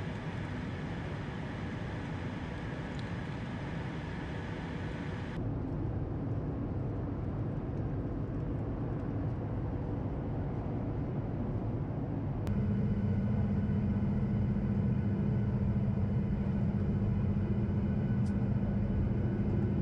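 Steady engine and airflow noise heard inside the cabin of a Boeing 737 MAX airliner. The sound changes abruptly twice, about five and twelve seconds in. After the second change it is louder, with a steady low hum.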